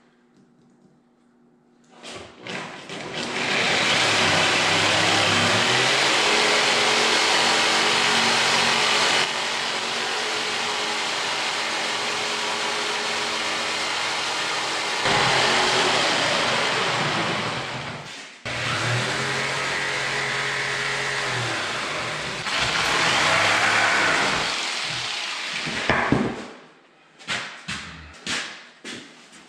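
Handheld electric jigsaw sawing a sink cutout through a countertop. It starts about two seconds in, runs steadily with its pitch rising and falling as the cut goes, stops for a moment a little past halfway, then runs again until about three seconds before the end, followed by a few knocks.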